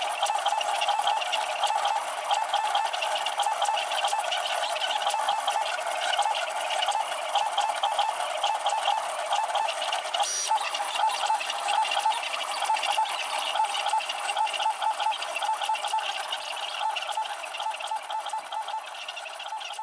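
A DIY CNC engraver running a drag-engraving job: its stepper motors whir and the spring-loaded needle scratches across acrylic. The sound is a steady, high-pitched, rapidly pulsing chatter, sped up four times.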